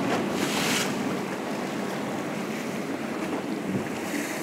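Steady rush of boat engines and water at speed, with wind buffeting the microphone in gusts, the strongest about half a second in and again near the end.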